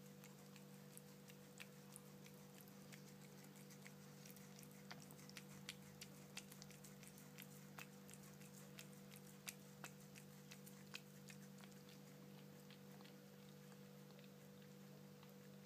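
Cat licking and chewing a strawberry: faint, scattered wet clicks that come thickest in the middle and stop a few seconds before the end, over a steady low hum.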